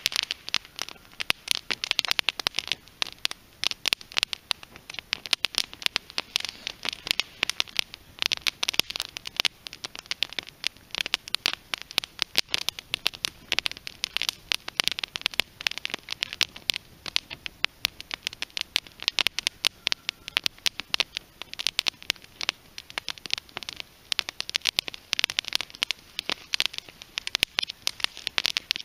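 Small teepee fire of split green western red cedar heartwood crackling and popping, with dense sharp snaps several times a second that come in thicker bursts now and then.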